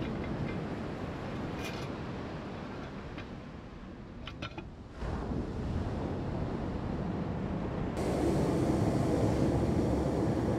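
Wind buffeting the microphone over the wash of surf, with a few light clicks near the start and again about four and a half seconds in. The noise steps up and grows louder about eight seconds in.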